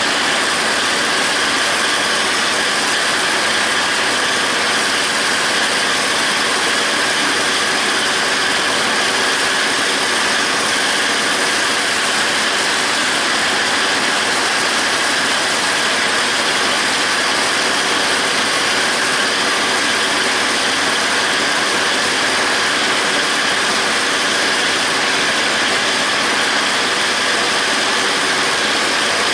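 John Deere 5320 tractor's diesel engine and its PTO-driven John Deere 270 disc mower running while mowing grass hay: a loud, steady mechanical noise that does not change.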